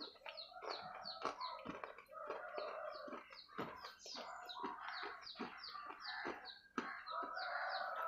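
Birds chirping rapidly, several short falling chirps a second, over close mouth and chewing noises at the clip-on microphone.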